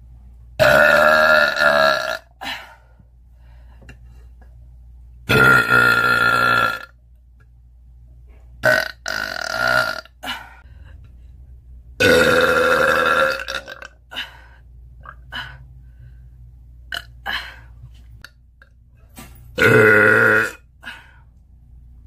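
A woman burping loudly, a series of about five long, drawn-out belches of one to two seconds each, with short faint clicks in the quiet gaps between them.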